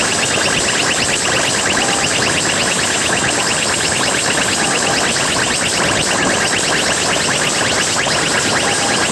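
Vehicle horn sounding continuously: a fast-warbling electronic horn repeating many quick chirps a second over a steady hiss, without a break.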